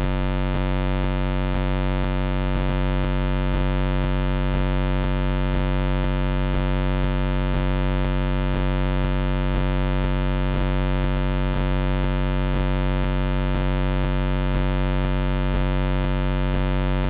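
Steady electrical hum and buzz from the trail camera's own circuitry, a low drone with many overtones that holds unchanged throughout.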